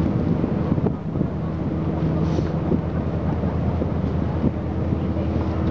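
Sightseeing ship's engine running steadily under way, a constant low hum, with wind rumbling on the microphone.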